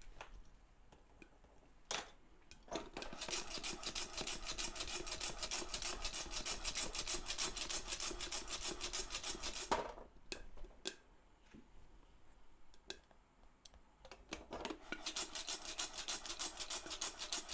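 Coffee beans rattling and swishing inside a lidded saucepan as it is shaken over a gas burner, during a light roast just past first crack. The fast rattle comes in two long bouts, with a pause of a few seconds in the middle that holds only a few single clicks.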